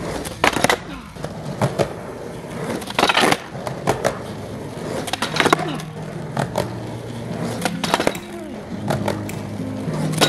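Skateboard tries on a flat rail: hard 53 mm urethane wheels rolling on concrete and asphalt, with a series of sharp clacks and slaps as the board pops, hits the rail and lands or is bailed.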